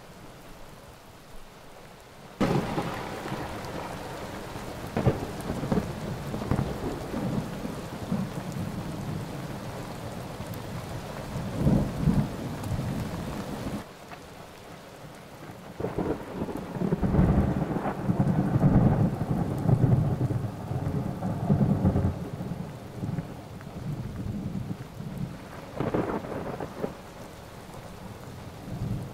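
Thunderstorm: steady rain with rolling thunder rumbles. The sound steps up abruptly about two seconds in. The heaviest thunder comes about twelve seconds in, through the middle stretch, and again near the end.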